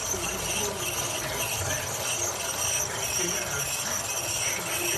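Tacx Flux smart trainer running, its drive belt squeaking over and over in a quick, even rhythm above a low hum from the flywheel. This high squeak is the trainer's typical belt fault.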